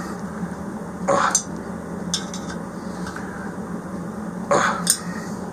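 Hand driver clinking on the bolts of a diesel heater's combustion chamber as they are checked for tightness: a few short metallic clicks, the loudest near the end, over a steady low hum.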